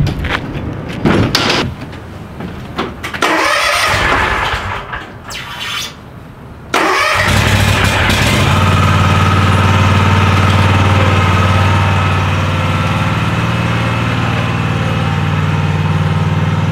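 Clunks and knocks as an enclosed trailer's rear ramp door is lowered and someone climbs in, then a riding lawn mower's engine starts about seven seconds in and runs steadily.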